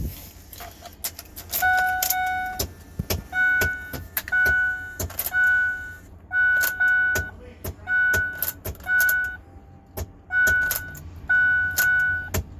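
2005 Ford F-150's electronic warning chime beeping over and over with the key in and the engine not yet running: short two-tone beeps, one or two a second with uneven gaps, mixed with sharp clicks.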